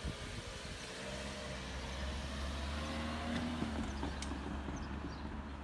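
A car driving past at road speed. Its engine hum and tyre noise build up and then ease off as it goes by.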